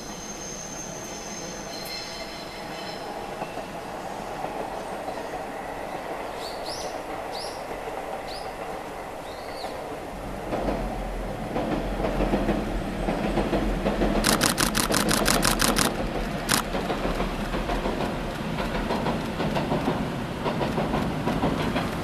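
A diesel railcar rumbling and rattling across a steel truss bridge, the rumble rising about halfway through and holding to the end. A few rising chirps of a bird come earlier, and a quick run of sharp clicks lasts about two seconds in the middle.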